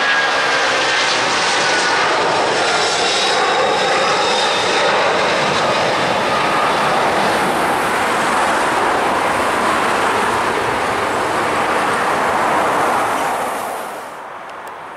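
Jet engine noise from a departing British Airways Boeing 747-436 climbing out at takeoff power, its Rolls-Royce RB211 turbofans giving a loud, steady noise with a faint whine that falls slowly in pitch over the first few seconds. About a second before the end the sound drops sharply to a quieter level.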